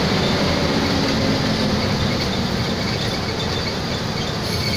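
Bus driving at speed: a steady drone of engine and road rumble with rattling, without any clear change.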